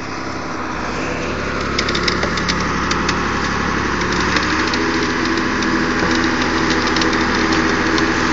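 Jitney engine running and growing steadily louder, with a scatter of sharp clicks over the engine noise in the first half.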